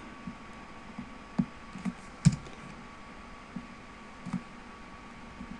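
Computer keyboard keystrokes and clicks, about seven separate taps spread over a few seconds, the loudest a little past two seconds in.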